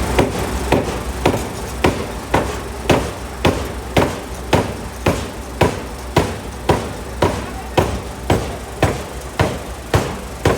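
750 kg pneumatic forging hammer striking a hot steel block in an even rhythm of about two blows a second, over the steady low hum of the machine.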